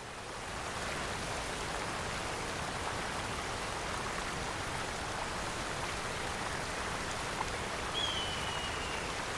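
Waterfall splashing steadily: a constant rush of falling water that swells up over the first second. A single thin, slightly falling whistle sounds about eight seconds in.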